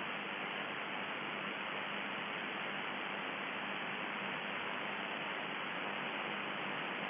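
Steady static hiss from a shortwave radio receiver, with a faint low hum underneath.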